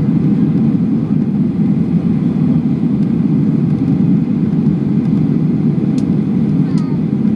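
Steady roar of jet engines and rushing air inside the cabin of a Boeing 737 airliner descending on approach to land, with flaps extended. Two faint clicks come near the end.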